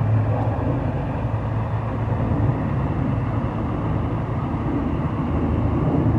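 Four-engined jet airliner flying high overhead, its engines making a steady low rumble.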